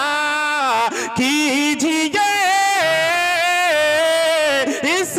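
A man singing a naat solo without instruments, drawing out the words in long ornamented melismatic runs. About halfway through he holds one long note that slowly sinks in pitch.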